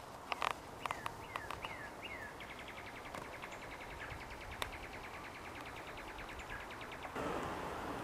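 A few sharp taps near the start, then several short falling chirps, then a small bird's fast, even, dry trill that runs for several seconds. Wind noise rises suddenly near the end.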